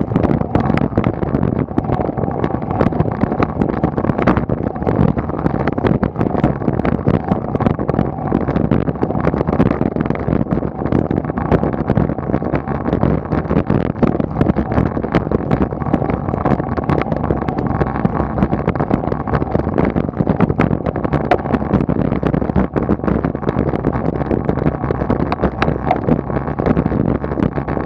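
Steady wind buffeting and road rumble on a bike-mounted camera's microphone as a road bike climbs.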